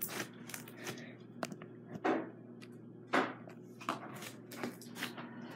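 Thick butter slime being squeezed and folded by hand on a tabletop, giving a string of short sticky clicks and squelches, about two a second.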